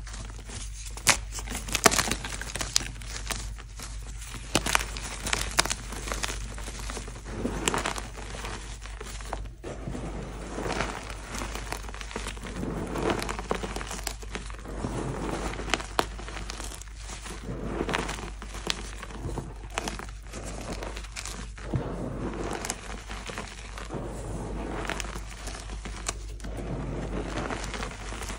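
Soft pasted gym chalk being crushed and crumbled by gloved hands. Sharp cracks and crunches come in the first few seconds as the blocks break apart, then a steadier soft, gritty crumbling as the loose chalk powder is squeezed and rubbed between the palms.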